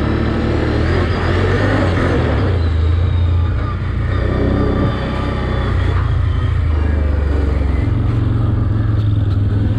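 Can-Am Outlander ATV engine running while the quad is ridden along, its note dropping slightly about three and a half seconds in and rising again about eight seconds in.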